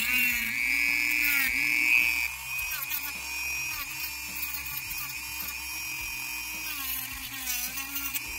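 A power-tool cutting wheel spinning at high speed and cutting through the plastic casing of a toy soft-bullet shell. It makes a high whine whose pitch dips and wavers as the wheel bites. It is loudest for about the first two seconds, then runs steadier and a little quieter.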